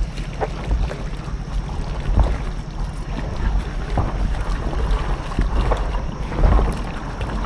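Wind rumbling on the microphone and water noise as a kayak moves along a river, with a sharper swish every second or two.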